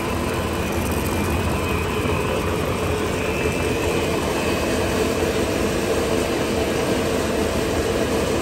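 Steady drone of a running cast stretch film machine, with a faint high whine over it.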